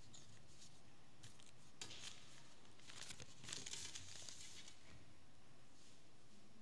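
Faint rustling and light handling noises near a microphone, a cluster of soft crinkles and ticks in the middle, over quiet room tone.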